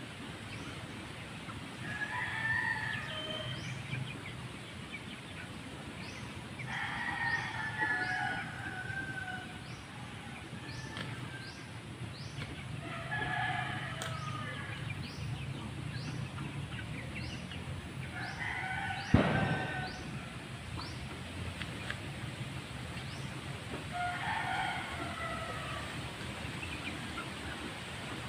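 Roosters crowing again and again, one long crow every five or six seconds, with a single sharp knock about two-thirds of the way through.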